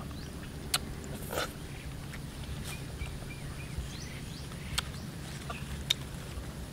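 Small fruits being picked by hand off a leafy branch: about five sharp snaps spread over several seconds with light leaf rustle, over a steady low outdoor rumble.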